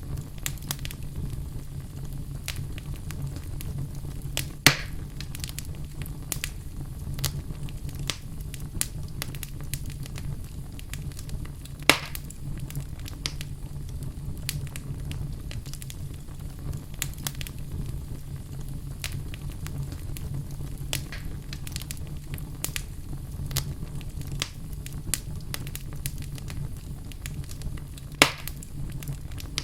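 Wood fire burning in a fireplace: a steady low rumble with continual small crackles, and three louder pops, about five seconds in, about twelve seconds in and near the end.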